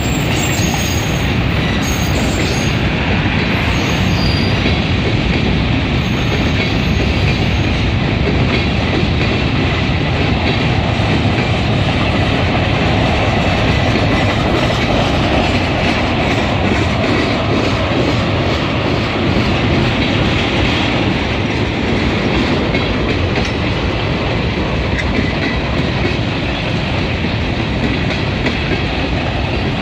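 Freight cars rolling past at close range: a steady, loud rumble of steel wheels on rail with clickety-clack from the wheels crossing rail joints.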